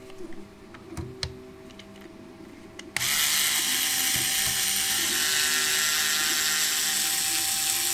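A few light clicks of parts being handled, then about three seconds in a cordless electric screwdriver starts and runs steadily with an even motor whine, backing a screw out of the air rifle's action.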